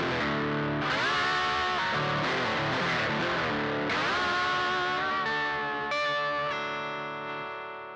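Outro music: a guitar riff with bent notes, then a held chord that rings and fades away near the end.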